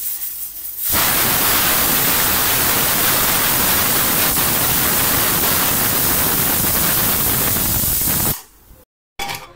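Stovetop pressure cooker whistling: steam jets out past its weighted valve in a loud, steady hiss that starts about a second in and stops suddenly after about seven seconds. The whistle is what is counted to time the cooking; after two whistles the heat goes off.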